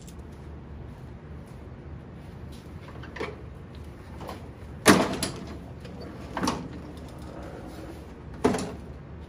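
A Toro TimeMaster walk-behind mower being tipped from its side back onto its wheels: four knocks of its deck and wheels against the floor, the loudest about halfway through.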